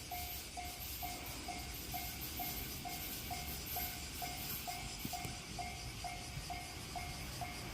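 Japanese railway level-crossing warning bell ringing, a short clear electronic tone repeating evenly about twice a second, signalling that a train is approaching.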